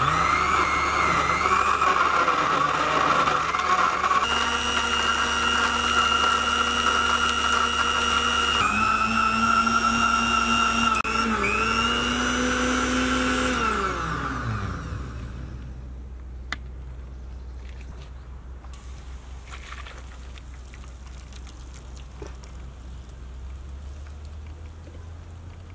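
Electric countertop blender running on a jug of grapes, sugar, ice cubes and honey: a loud motor whine that shifts in pitch a few times, then winds down and stops about 15 seconds in.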